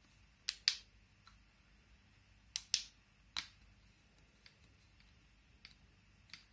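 Small sharp plastic clicks from the LED torch head of a folding walking cane being handled and worked in the fingers: two quick pairs in the first three seconds, one more soon after, then a few faint ticks.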